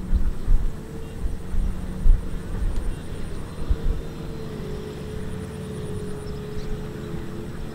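Kubota M6040 tractor's diesel engine running steadily as it pulls a loaded trailer through mud: an even drone with a slightly wavering pitch over an uneven low rumble.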